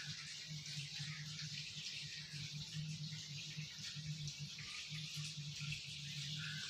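Steady low hum with a constant hiss over it, with no distinct sound events.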